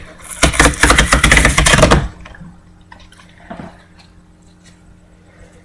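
Packaging being torn open by hand: a rapid crackling rip lasting about two seconds, followed by a few faint handling knocks over a low steady hum.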